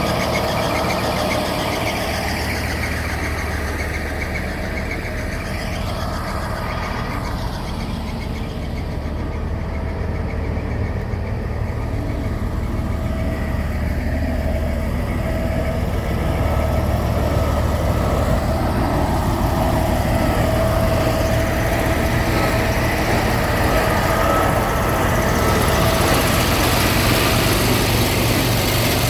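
Caterpillar C27 V12 diesel engine of a Peterson 5710C horizontal grinder running steadily, growing somewhat louder in the second half.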